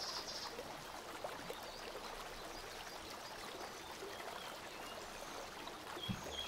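Faint, steady background noise: an even hiss with a fine crackly texture and no distinct event.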